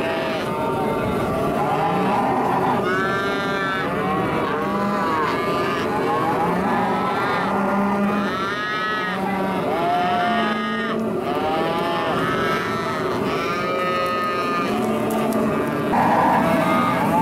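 Calves bawling over and over, many calls overlapping, each rising and falling in pitch.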